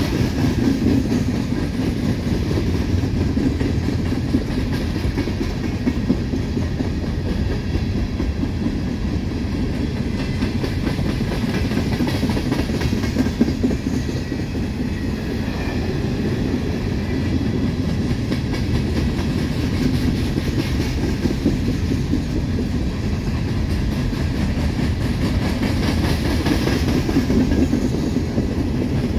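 Long train of empty coal hopper cars rolling past: a steady rumble of steel wheels on rail, with rapid clicking over the rail joints.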